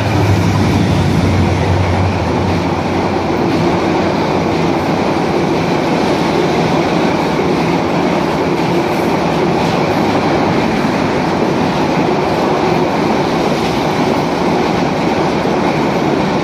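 A Bangladesh Railway GT38AC diesel-electric locomotive runs by close at hand, its engine a strong low hum for the first couple of seconds. Then a long rake of passenger coaches rolls past, with a steady rush of wheels on the rails.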